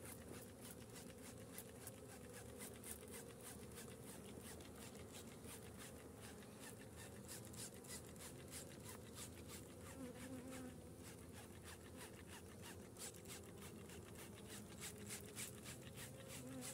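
Honeybees buzzing around an open hive, a faint steady hum. Over it come many short hisses, a few a second, from a hand trigger sprayer squirting sugar syrup.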